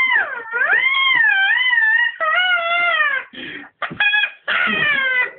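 Long, high-pitched wailing screams from a human voice, cat-like in tone: each held on one pitch, then dipping, wavering and sliding down. A few short cries about four seconds in, then another falling wail near the end.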